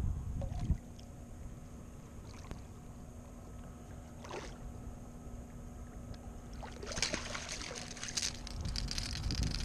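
Water splashing as a hooked fish thrashes at the surface beside a kayak and is scooped with a landing net. There are a few short splashes early on, and the heaviest splashing comes about seven to nine and a half seconds in.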